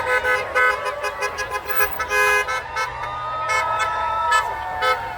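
Car horns honking in support of protesters: several quick toots in the first couple of seconds, then a longer held blast from about three seconds in to near the end.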